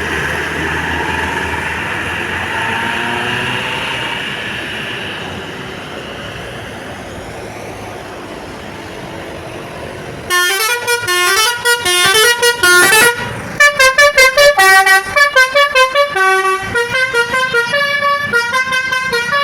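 Bus engine and road noise, then about halfway through a Basuri telolet bus horn starts loudly, playing a tune of quick stepped notes, some in fast chopped blasts.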